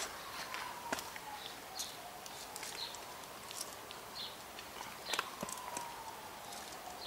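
A Greek tortoise's claws clicking and scraping faintly on a rough concrete path as it walks, in scattered single ticks.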